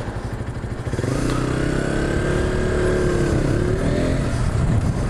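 Motorcycle engine ticking over, then pulling away about a second in, its pitch rising as it accelerates and easing off a little past three seconds.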